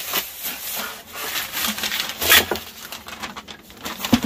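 Rolled paper poster being handled and unrolled: paper rustling, crinkling and rubbing against a surface in irregular bursts, loudest about two seconds in, with a short knock near the end.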